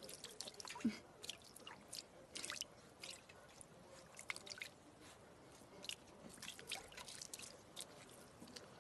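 Golden retriever puppy paddling in a steel bowl of water: faint, scattered splashes and drips of water.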